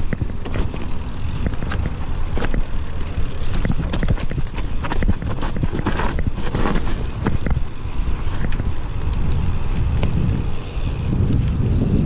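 Mountain bike rolling down a dirt singletrack: tyres running over the dirt while the chain and frame rattle, with frequent clicks and knocks over bumps, busiest about halfway through. A steady low rumble of wind buffets the microphone throughout.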